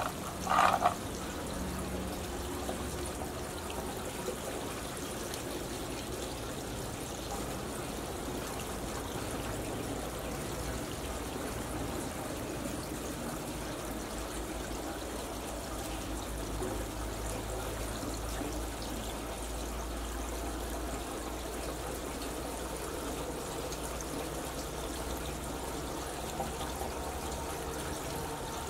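Steady rush like running water, with a short, loud sound about half a second in.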